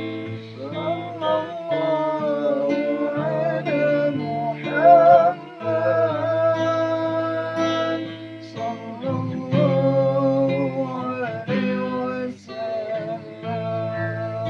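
Sholawat devotional music: a voice singing long, ornamented, wavering notes over steady instrumental accompaniment.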